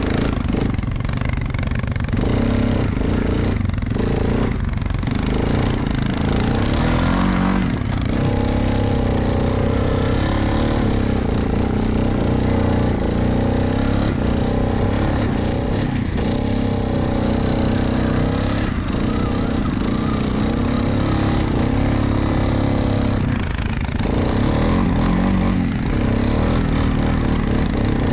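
ATV engine running while riding, its pitch rising and falling with the throttle.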